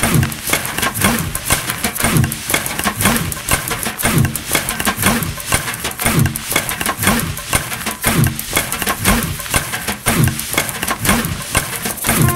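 Rhythmic, industrial-style percussion: a deep, falling thud about once a second under dense metallic clicking and rattling.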